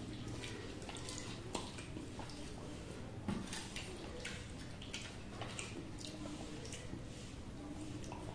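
Two people eating rice and curry by hand from steel plates: wet mouth and finger sounds, lip smacks and chewing, with many small clicks and a couple of light knocks.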